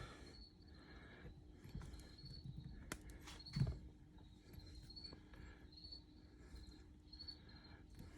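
Faint, regular high chirping of an insect, about two short chirps a second, over a low steady hum. A few soft clicks and a small knock about three seconds in come from parts being handled.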